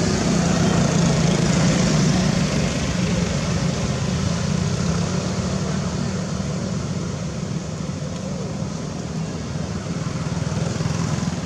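Steady engine drone over outdoor noise, a little louder in the first two seconds and then easing slightly.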